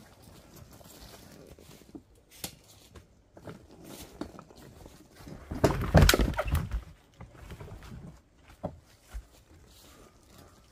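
Firewood rounds tumbling out of a tipped wheelbarrow onto a woodpile: a quick cluster of wooden knocks and thuds about six seconds in, with a few single knocks before and after.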